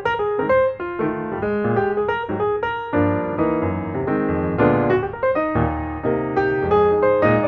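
Background piano music, with many notes and chords struck in quick succession.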